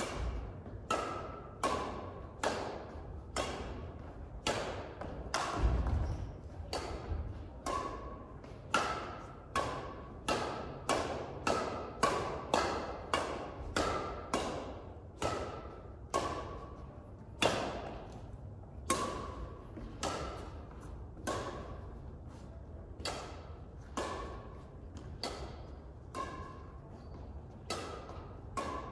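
Badminton rackets striking a shuttlecock back and forth in a continuous rally: sharp strikes about every half to one second, many with a short ringing ping from the strings, echoing in a large hall. A heavier thud about six seconds in.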